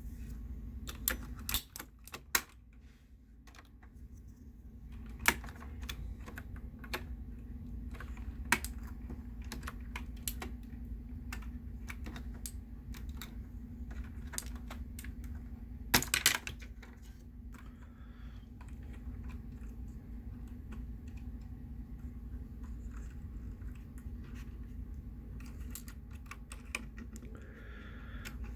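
Plastic keycaps being pulled off and pressed onto a Razer mechanical keyboard's switches: irregular clicks and clacks, a few sharper ones standing out, over a steady low hum.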